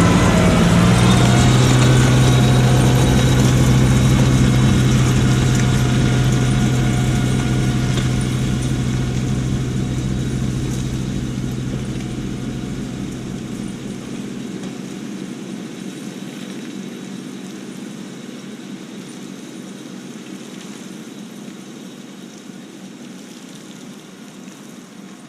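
Kubota LX2610 compact tractor's diesel engine running steadily, the sound slowly fading out.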